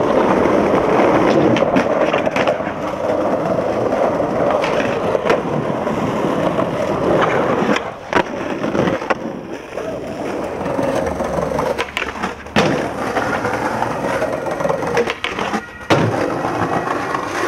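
Skateboard wheels rolling over rough pavement, broken several times by sharp clacks of the tail popping and the board landing.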